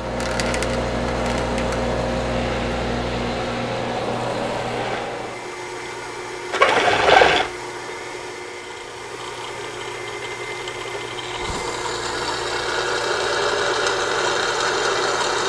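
A small milling machine running, its spindle cutting a hole through a steel plate held in a vise: a steady machine whine with cutting noise. A short, louder burst of grinding comes about seven seconds in.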